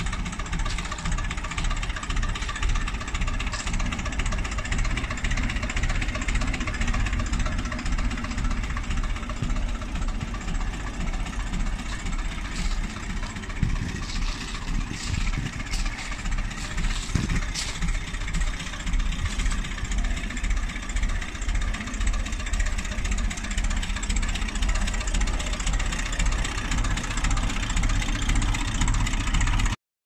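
1954 Ferguson TEF20 tractor's four-cylinder diesel engine running steadily at idle.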